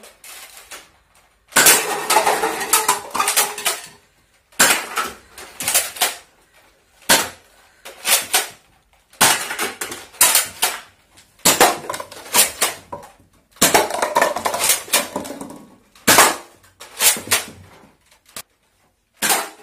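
Pump-action X-Shot Ninja foam dart blaster being worked and fired over and over: about ten bursts of plastic clacking and snapping, a second or two apart.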